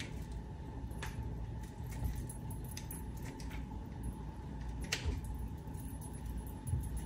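Scattered light clinks and taps of kitchen utensils and cookware over a steady low hum, with the clearest clicks about a second in and about five seconds in.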